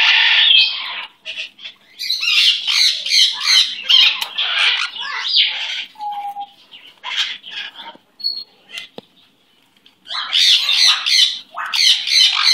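Sun conures squawking in loud, harsh, rapid bursts, falling to a few scattered calls and a short lull about eight seconds in, then squawking again.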